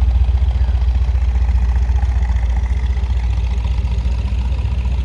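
A car engine idling with a steady, deep rumble.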